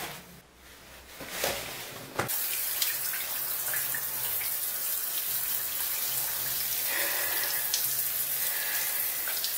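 A shower running, water spraying steadily onto a tiled floor and bare skin, coming on about two seconds in after a couple of light knocks.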